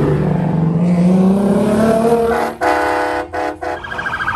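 Car engine revving up, rising in pitch, then a car horn honked twice. A high steady tone starts near the end.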